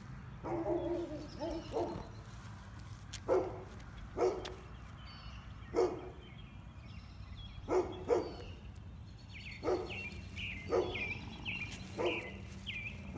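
A dog barking repeatedly, single short barks about a second apart. In the second half a small bird chirps a quick, repeated call.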